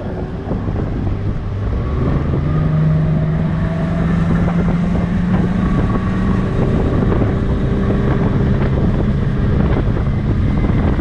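Bass boat outboard motor running steadily at speed, with wind buffeting the microphone.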